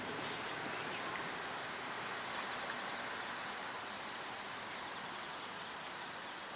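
Steady outdoor background hiss, even and unbroken.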